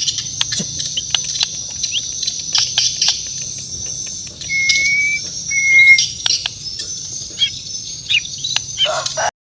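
Bornean white-rumped shama (murai batu) singing: a run of sharp, clicking chips and short calls with two clear whistled notes about halfway through, over a steady high-pitched background tone. The sound cuts off abruptly near the end.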